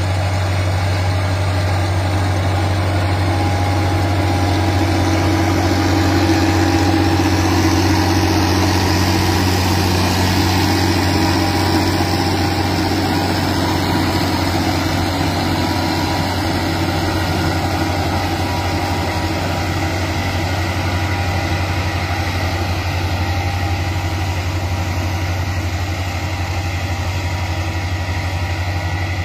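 White 2-105 tractor's six-cylinder diesel engine running at a steady speed with a deep, constant drone, under load as it pulls a discbine mower through hay.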